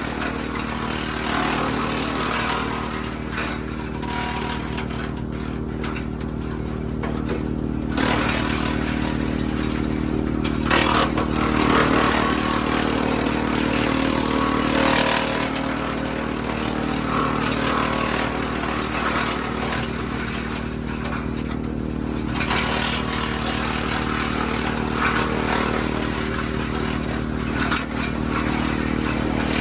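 WoodMaxx MX-8800 PTO-driven wood chipper running off a Kubota L3901 tractor's diesel engine in a steady drone. Several spells of louder chipping noise come as apple branches are fed through.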